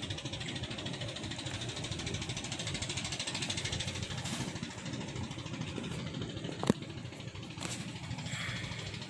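An engine running steadily, with one sharp click about two-thirds of the way through.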